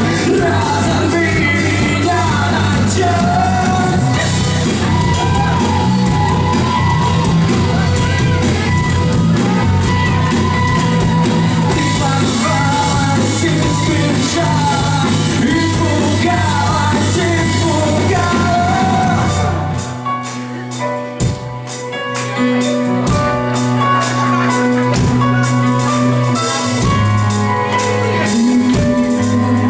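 Live band music with a vocalist singing over the full band. About twenty seconds in the singing and full band drop away to a sparser section of sustained bass and guitar notes with separate drum hits.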